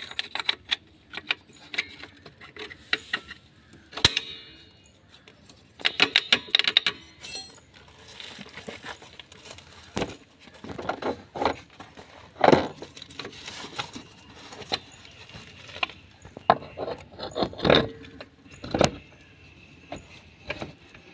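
Metal parts and hand tools clinking, rattling and knocking as the brake shoes and rear wheel are refitted to a Honda Dio scooter's rear drum brake. The knocks come irregularly, with quick runs of clinks a few seconds in and several heavier knocks in the second half.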